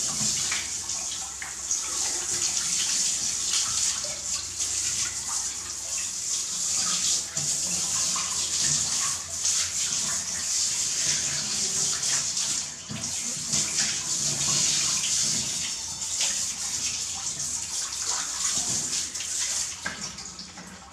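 Steady hiss of water spraying from a handheld hose sprayer onto a monkey's wet fur and splashing on bathroom tiles.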